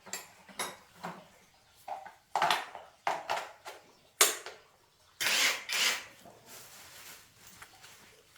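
Metal pieces being handled: a string of sharp clanks and clinks, with two longer scraping noises about five to six seconds in.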